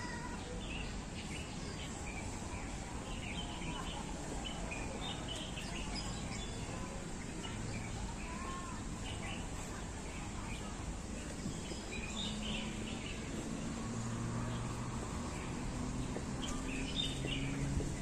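Birds chirping and twittering in short scattered calls over a steady low background rumble; a faint low hum joins in about two-thirds of the way through.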